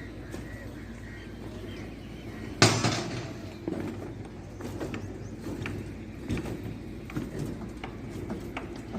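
Construction work: one loud bang about two and a half seconds in, then scattered lighter knocks and clinks over a steady low hum.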